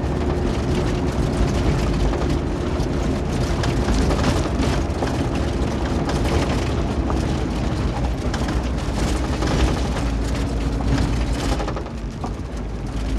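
A 2020 Kia 4x4 heard from inside the cabin while driving over a gravel dirt road: a steady engine drone and tyre rumble, with frequent clicks and rattles from gravel and bumps. It gets a little quieter near the end.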